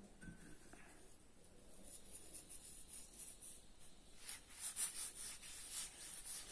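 A hand rubbing salt onto a scored raw green mango. Faint rubbing strokes, several a second, start about four seconds in.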